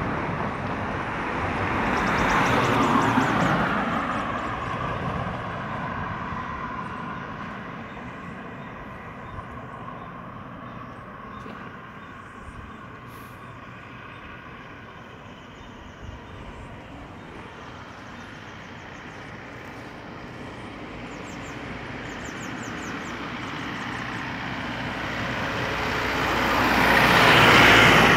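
Road traffic passing on a street. A vehicle swells and fades a few seconds in, and the road is quieter through the middle with a faint steady hum. Then a white Isuzu pickup truck approaches and drives past close by near the end, the loudest moment.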